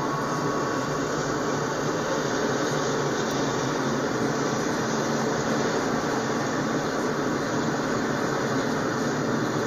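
Double-stack intermodal train's container well cars rolling past, a steady noise of steel wheels on rail.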